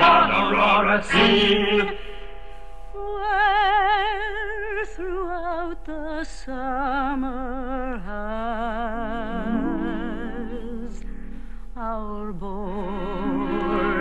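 Recorded music: a voice-like melody of long held notes with wide vibrato, a few of them sliding down in pitch. The first two seconds are busier and louder.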